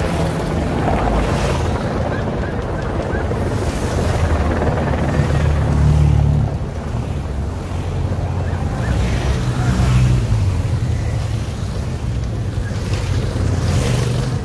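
Race-convoy cars and motorcycles driving past one after another over cobblestones, the swells coming every few seconds as each goes by, under heavy wind buffeting on the microphone.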